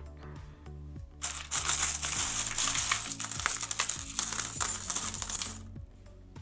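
Many loose coins clinking and jingling against each other in a tub as they are rummaged through, for about four seconds starting a second in, with background music underneath.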